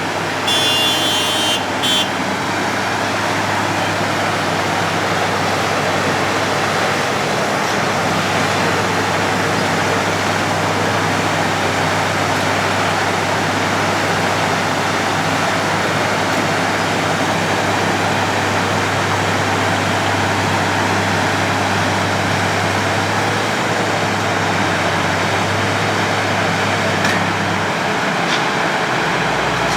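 Road planer (cold milling machine) working: a steady diesel engine hum under the constant noise of the drum milling the road surface. A brief high-pitched pulsing tone sounds about a second in, and the engine note drops near the end.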